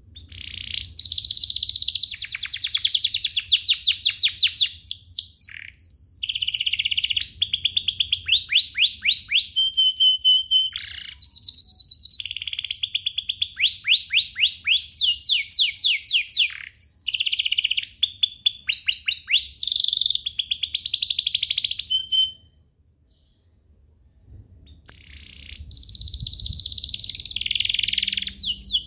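Domestic canary singing a long, fast song of rapid trills and rolls of repeated notes. It breaks off about 22 seconds in for a couple of seconds, then starts singing again.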